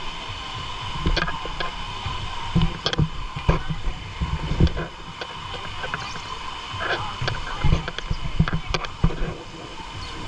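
Water splashing and sloshing against a camera in a waterproof case, with many irregular thumps and knocks.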